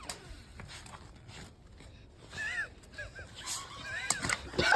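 A few short, high animal calls, each rising and falling in pitch, about two and a half seconds in and again near the end.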